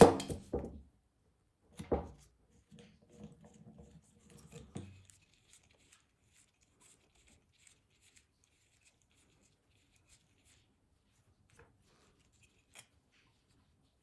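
Wooden parts of an antique hand-crank massage tool being handled on a work table: a clatter of knocks at the start and another knock about two seconds in, then a short scraping rattle lasting about two seconds, followed by a few faint small ticks.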